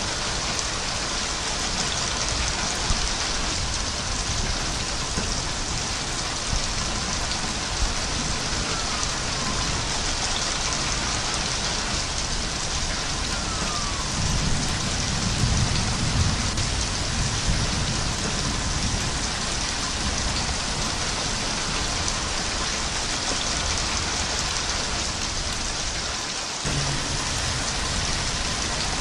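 Steady heavy rain, with a low rumble of distant thunder swelling and fading about halfway through.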